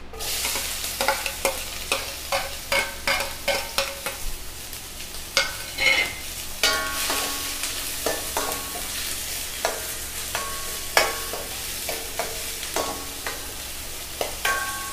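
Chopped shallots dropped into hot oil in a stainless steel kadai, sizzling at once, while a spoon stirs them with repeated clicks and scrapes against the pan, some strikes making the metal pan ring briefly.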